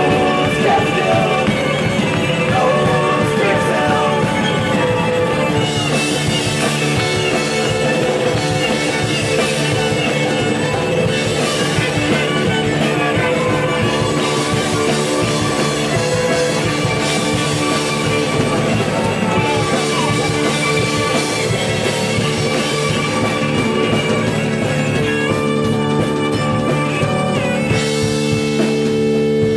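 A rock band playing live and loud, drum kit with pitched instruments, continuous through the whole stretch.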